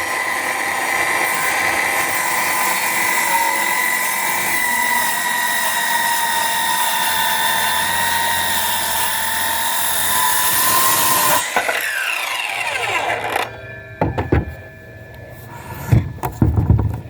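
Bauer 20-volt cordless circular saw with a framing blade spinning up and cutting into a pressure-treated 4x4, a steady whine over the hiss of the cut, smooth and quiet. About eleven seconds in the trigger is released and the blade spins down over a couple of seconds, followed by a few knocks near the end.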